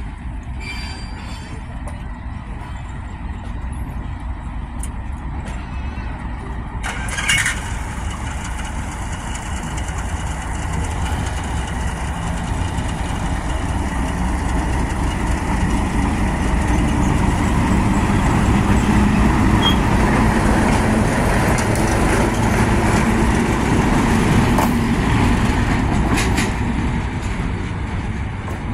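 Diesel locomotive 844's engine running in a steady low rumble as it moves slowly, growing louder as it comes closer, with one brief sharp noise about seven seconds in.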